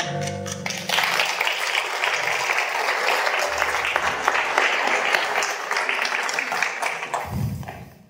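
Audience applauding, breaking out about a second in over the last ringing note of the musical accompaniment and dying away near the end, with a low thud shortly before it fades.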